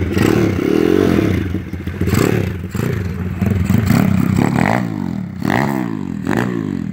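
SSR pit bike's small single-cylinder four-stroke engine revving as the bike pulls away, its pitch rising and dropping back several times in quick succession.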